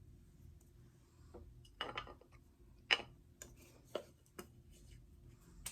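About six light clicks and taps spread unevenly over a few seconds, the sharpest about three seconds in: small makeup containers being handled, opened and set down.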